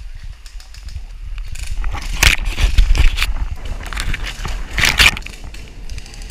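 Leaves, twigs and tree bark rubbing and crunching right against a head-mounted camera as it pushes through brush, over a deep handling rumble. It comes in rough swells, loudest twice, about two seconds in and about five seconds in.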